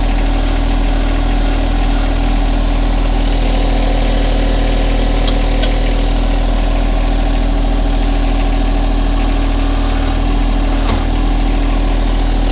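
John Deere 1025R compact tractor's three-cylinder diesel engine idling steadily, with a couple of faint clicks.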